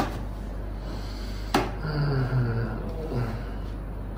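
A sharp click about a second and a half in, then a man groaning in pain: a low, drawn-out moan falling in pitch, followed by a shorter one.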